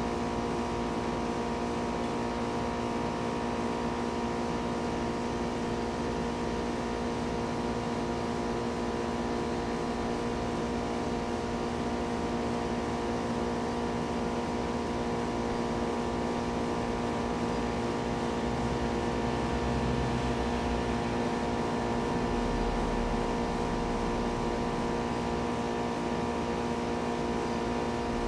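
Steady mechanical hum with several fixed tones, unchanging throughout.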